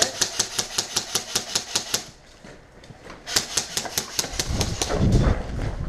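Airsoft gun firing two rapid strings of sharp clicking shots, about seven a second, each string lasting one to two seconds. Low rumbling handling or movement noise follows near the end.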